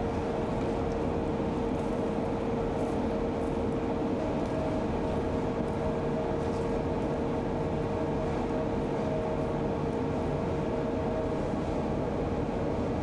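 Steady mechanical hum with a constant droning tone, level throughout.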